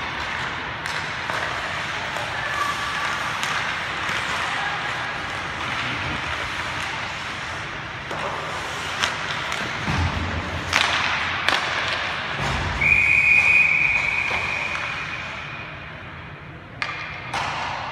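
Ice hockey play: skates scraping on the ice, with sharp clacks of sticks and puck and a few hard knocks against the boards. About two-thirds of the way through, a referee's whistle sounds one steady blast of about two seconds, stopping play.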